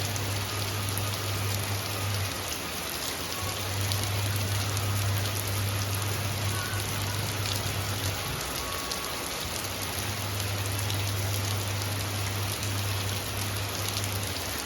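Steady rain falling, with the fine patter of drops hitting surfaces. A low hum runs underneath and drops out a few times.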